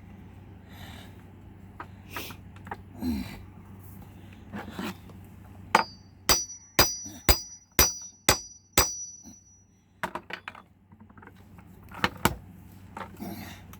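Metal tools being worked against a locked steel safe: a run of seven sharp, ringing metallic strikes about two a second near the middle, with lighter clinks and scrapes before and after.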